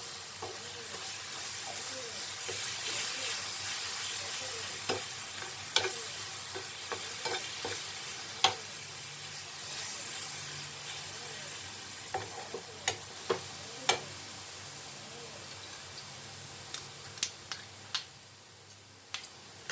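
A steel spoon stirs and scrapes a grated coconut and jaggery filling in a nonstick frying pan, over a steady sizzle. Sharp clicks of the spoon against the pan come more often in the second half.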